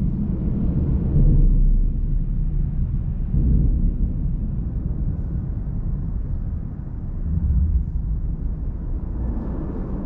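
A low, uneven rumble that swells and eases every few seconds.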